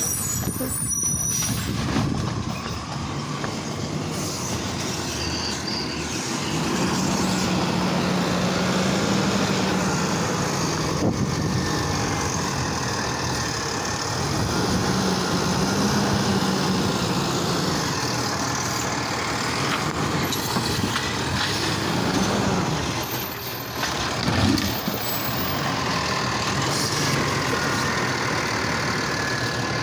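Automated side-loader garbage truck running, its engine revving up and down in long swells as the hydraulic arm works, lifting a cart to tip it into the hopper, with a short knock late on.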